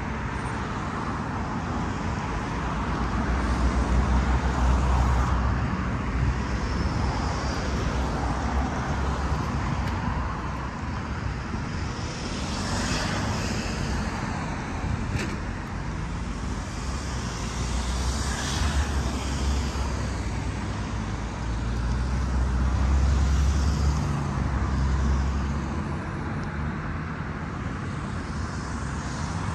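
Steady road traffic noise, with passing vehicles swelling louder now and then.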